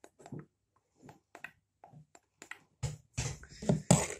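Faint scattered clicks and rustles of hair being handled, then, about three seconds in, a loud rustling clatter close to the microphone as a plastic spray bottle is picked up from beside it.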